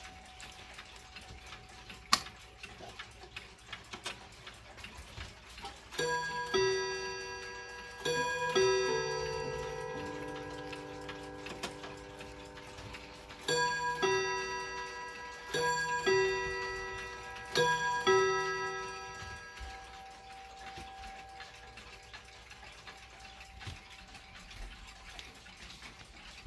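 Tambour mantel clock chiming a melody in several groups of struck, ringing notes from about six seconds in to about nineteen seconds, with the movement ticking steadily before and after. A single sharp click comes about two seconds in.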